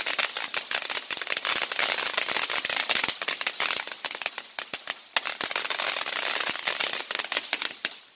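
Consumer fireworks crackling: a dense, rapid run of small pops that goes on for several seconds, with a brief lull about five seconds in, then dies away near the end.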